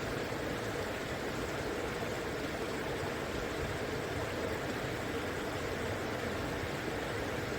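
River water flowing steadily: an even, unbroken rush of water.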